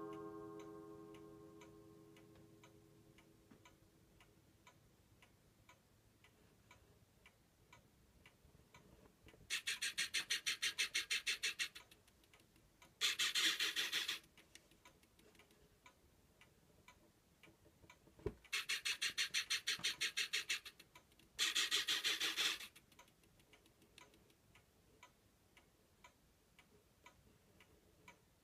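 Small RC servo of a model steam boiler's water-level control running in four short buzzing bursts of one to two and a half seconds each, heard over faint, steady ticking. A ringing tone from a strike just before dies away over the first few seconds.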